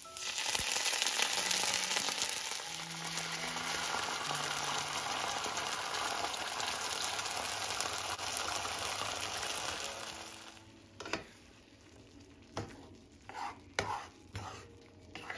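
Diced onions and poured-in tomato purée sizzling loudly and steadily in hot oil in a nonstick frying pan. After about ten seconds the sizzle dies down, and a spatula knocks and scrapes against the pan several times as it is stirred.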